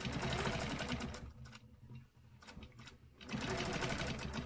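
Free-motion quilting machine stitching at a rapid, even rate in two runs, with a pause of about two seconds between them.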